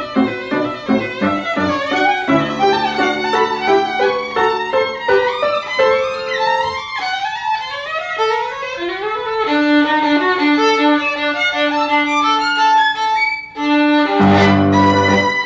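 Violin played with the bow: quick runs of notes, then longer held notes, ending on a loud chord about a second before the end.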